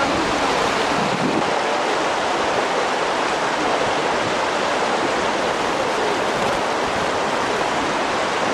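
Fast river water rushing over rapids: a steady, even rush of whitewater.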